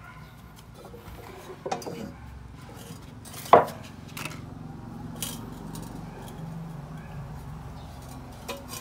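A few sharp knocks and clinks as a Kawasaki KMX125 expansion-chamber exhaust pipe and a flat object held against it are handled on a concrete floor. The loudest knock comes about three and a half seconds in and rings briefly. A low steady hum runs underneath.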